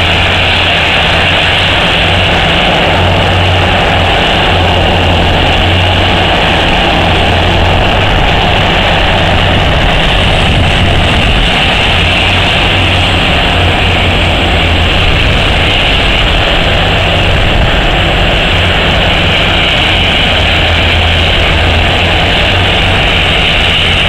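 Terex O&K RH120-E hydraulic mining shovel's diesel engines running steadily as the machine digs, a constant low hum with no breaks.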